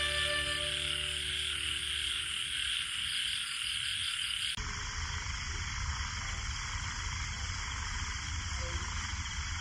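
Steady night chorus of frogs and crickets. About halfway through it changes abruptly to another stretch of the same kind of chorus.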